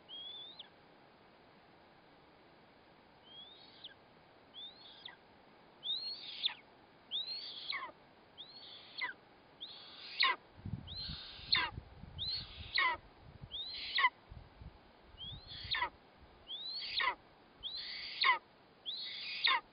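A young eastern imperial eagle's begging calls: a series of high whistled calls, each sliding steeply down in pitch, coming about once a second and growing louder as the series goes on. A low rumble sits under the calls for a few seconds in the middle.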